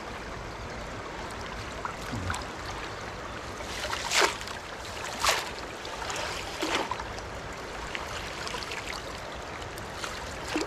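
Steady rush of river water flowing. Two short sharp sounds stand out about four and five seconds in, with a smaller one a little later.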